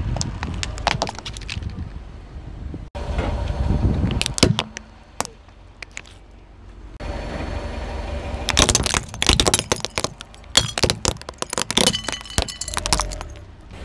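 Car tyre rolling over hard plastic toys on concrete, the plastic cracking and snapping as it breaks under the weight. A few cracks near the start and a cluster around four seconds in, then a long dense run of cracking and crunching in the second half.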